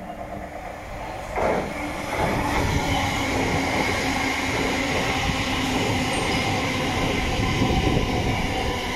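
Electric multiple-unit passenger train running past close by on the near platform track. The rumble and wheel noise come in suddenly about a second and a half in and stay loud and steady, with a steady whine over them.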